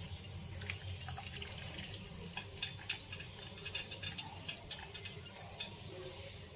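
Boiled spice water being poured through a strainer into a bowl: a faint trickle with scattered small clicks and drips over a low steady hum.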